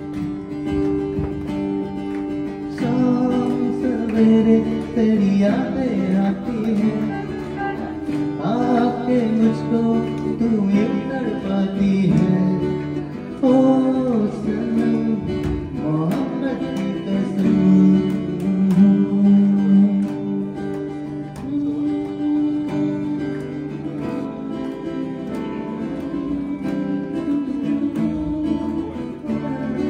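Live acoustic guitar playing chords, with a voice singing a melody over it from about three seconds in until about twenty seconds in.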